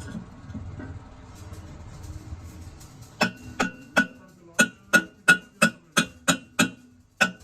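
Hammer blows on a metal part, about three a second starting some three seconds in, each ringing briefly. Before them a low machine rumble dies away.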